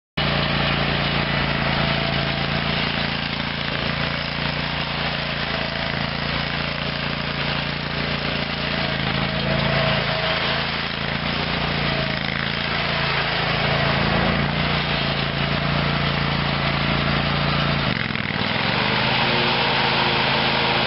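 Big Dog Black Jack zero-turn mower's Kohler 25 HP gas engine running steadily. About eighteen seconds in, the engine note dips briefly, then recovers and runs on evenly.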